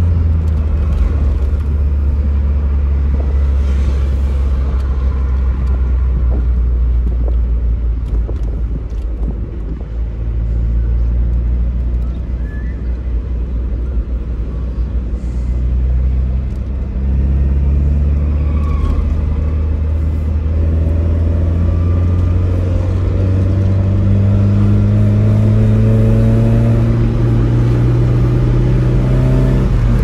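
Tofaş Doğan SLX's engine heard from inside the cabin as the car is driven hard. It runs with a steady drone and eases off briefly around ten seconds in. Then it climbs slowly in pitch over the last ten seconds as it pulls through a gear, and drops suddenly at the end with a gear change.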